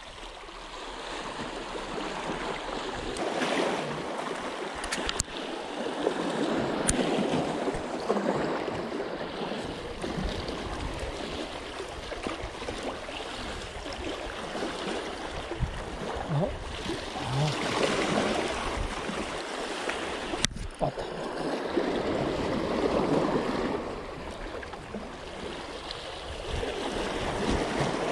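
Sea waves washing in: a rush of water that swells and fades every few seconds. A few sharp clicks stand out over it.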